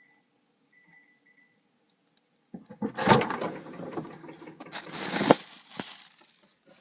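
Faint short electronic beeps, then from about two and a half seconds in loud close clattering, rustling and knocking of hands handling things, with the sharpest knocks about three and five seconds in.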